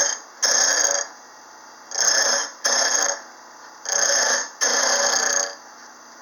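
Diamond wheel dresser in a jig being swept back and forth across the white aluminum oxide wheel of an 8-inch low-speed bench grinder. Each pass makes a loud, harsh grinding burst, about half a second long, roughly every second, and the grinder hums between passes. This is the wheel's face being trued and cleaned of embedded metal.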